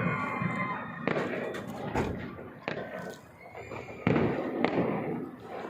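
Fireworks going off: a series of sharp bangs, about five in all, spaced roughly half a second to a second apart, each followed by an echoing tail.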